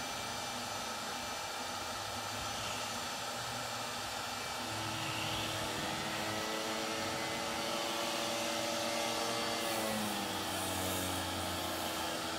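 Electric orbital sander sanding the first layer of paint off a wooden mast, with a shop vacuum running on its dust hose: a steady machine whine and hum, its pitch shifting slightly about five seconds in and again near ten seconds.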